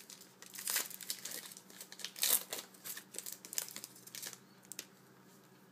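Foil wrapper of a trading-card pack crinkling and crackling as it is torn open by hand. The crackling stops about a second before the end, leaving a faint steady hum.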